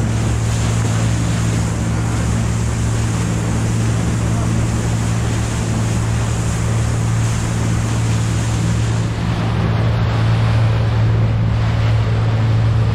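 Fishing boat's engine running steadily, a constant low drone, under the rushing hiss of water along the hull and wind on the microphone.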